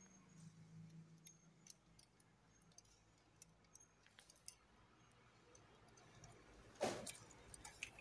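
Faint handling noise of electrical wiring at a modular switch board: scattered small clicks and ticks as wires are bent and pushed into the switch terminals, with one louder brushing rustle about seven seconds in.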